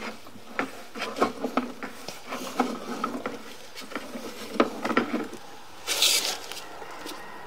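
Irregular clicks, taps and knocks as a sewer inspection camera's push cable is fed along a drain line, with a short loud hiss about six seconds in.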